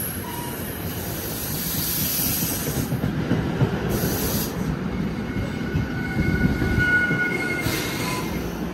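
NJ Transit passenger coaches rolling slowly past alongside the platform as the train brakes to a stop. The wheels rumble and rush on the rails, with patches of high hiss and a thin squeal from the wheels and brakes about six to eight seconds in.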